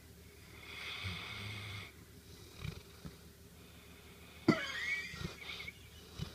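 Old dog snoring in its sleep: one drawn-out snore about a second in, then a louder breath that starts suddenly a little past the middle, with a few small clicks between.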